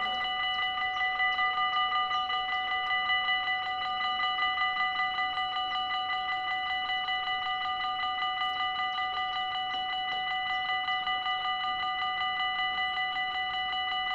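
Dutch level-crossing warning bells ringing in a fast, even, unbroken stream of strokes, sounding while the crossing's barriers lower to warn of an approaching train.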